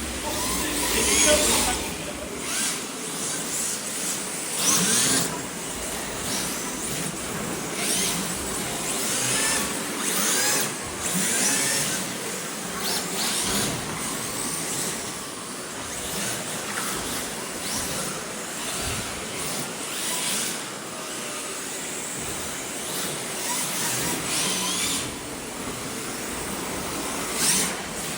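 Electric RC drift cars running laps, their motors whining up and down in pitch as they pass one after another, with the hiss of tyres sliding on the track surface.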